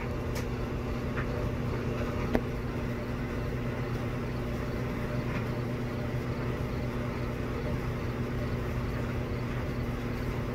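Steady mechanical hum of running room machinery, a low even drone, with a couple of faint clicks in the first few seconds.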